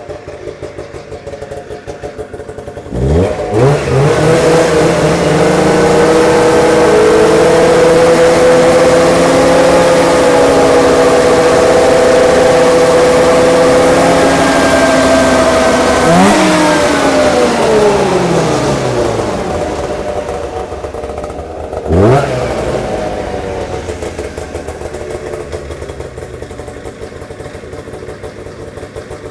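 1998 Arctic Cat Z440's fan-cooled two-stroke twin engine, revved up from idle about three seconds in and held at high revs for around thirteen seconds. It then falls back toward idle, with one short blip of the throttle a few seconds later, while it is being warmed up.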